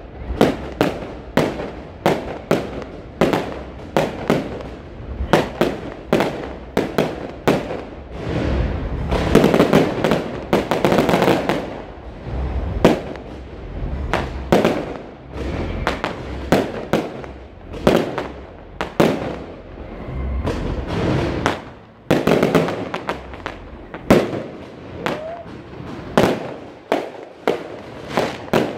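Fireworks display: aerial shells and rockets bursting in a steady stream of sharp bangs, one to three a second. There are thicker stretches of crackle about a third of the way in and again later.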